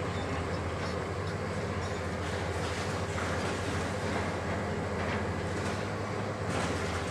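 Hitachi 870 XXL demolition excavator's diesel engine running with a steady low drone, with a few faint knocks over it.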